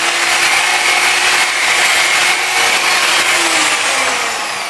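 Electric rotary polisher running steadily with a high whine as its pad buffs a car headlight lens, then winding down near the end as it is lifted off.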